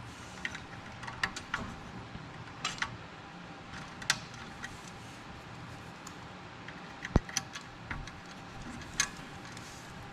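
Irregular small metal clicks and taps as an M5 screw is fastened by hand to secure the ceiling fan's safety wire, with one sharper click about seven seconds in.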